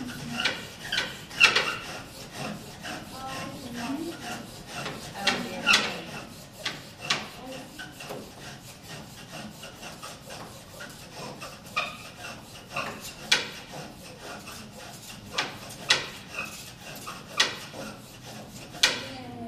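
Bow drill in use: a wooden spindle spun back and forth in a fireboard by a sawing bow, giving a steady rasping rub of wood on wood with irregular sharp clicks every second or so. The friction is hot enough to raise smoke, working toward an ember.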